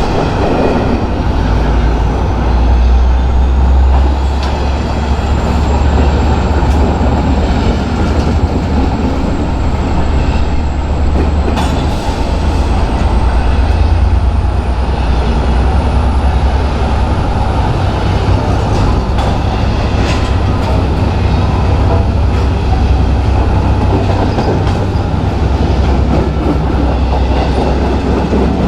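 A train rolling past: a loud, steady, deep rumble that lasts throughout, with scattered clicks from the wheels on the rails.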